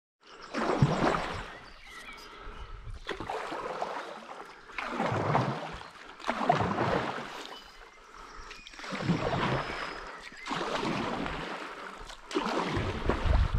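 Stand-up paddleboard paddle strokes in river water: a swish and splash about every two seconds, around seven strokes in all.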